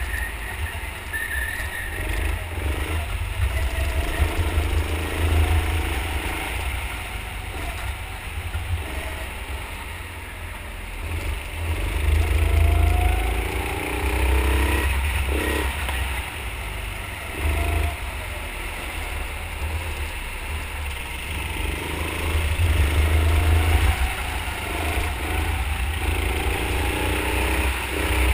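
Go-kart engine heard from the kart itself, its pitch rising and falling several times as it speeds up and slows through the lap, over a heavy low rumble.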